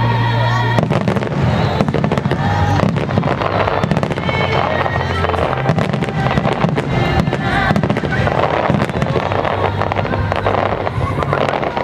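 Aerial firework shells bursting over a crowd, with dense rapid crackling that starts about a second in and goes on without a break.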